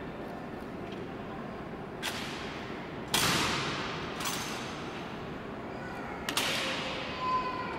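Honor guard's rifle drill: four sharp cracks of rifles and boots striking the stone floor, the loudest about three seconds in, each ringing out in a long echo off the marble hall.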